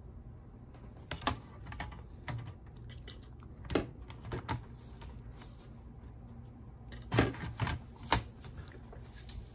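Scattered plastic clicks and knocks of an HP 15 laptop's bottom cover being set back onto the chassis and handled, in small clusters, the loudest group about seven seconds in.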